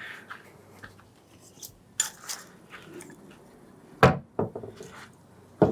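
Metal parts being handled on a workbench: a few light clinks about two seconds in, then a sharper knock about four seconds in, followed by smaller clatters and another knock near the end.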